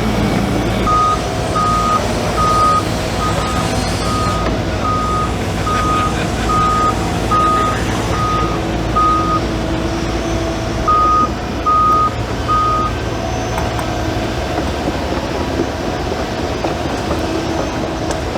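Develon DD130 crawler bulldozer running, its reversing alarm beeping at one steady pitch about once every 0.8 seconds as it backs up. The beeping pauses for a moment around ten seconds in, gives three more beeps and stops, while the engine keeps running.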